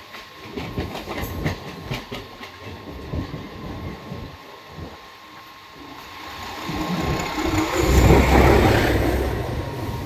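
Wheels of a moving passenger train clattering over the rail joints, heard from aboard. Then a train on the next track rushes past close by, swelling to a loud whoosh about eight seconds in.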